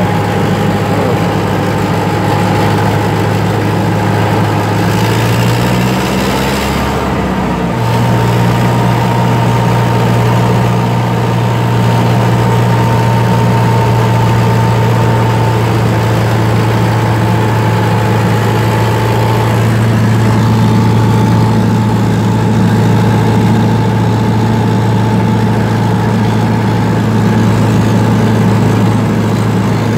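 Fortschritt ZT 303 tractor's four-cylinder diesel engine running steadily under load while pulling a disc harrow, heard from inside the cab. A thin steady whine sits over the engine. The engine note dips briefly around six to eight seconds in, then settles again.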